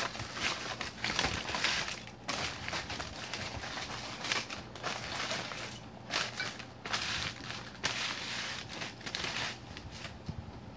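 Aluminium foil being pulled open by hands in silicone gloves: crinkling and rustling in irregular bursts, thinning out near the end.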